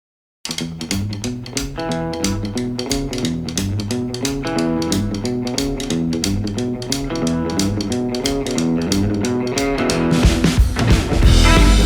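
Background music: a rock track with electric guitar, bass and drums, starting abruptly about half a second in and swelling louder near the end.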